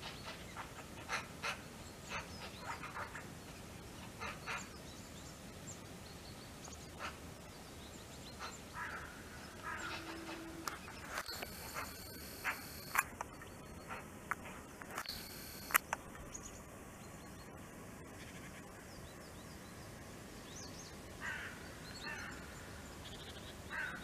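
Small forest birds calling faintly in short, scattered chips and twitters, with a couple of sharper clicks around the middle.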